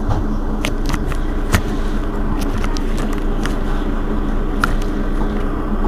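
Mercedes-Benz Citaro city bus engine idling steadily while the bus stands at a stop, with a scattering of short light clicks over the hum.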